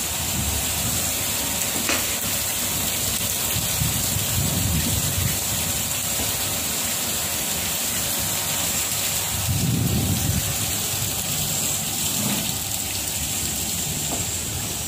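Steady hiss and rush of water spraying from an automatic train wash's jets, with a low rumble swelling a few times.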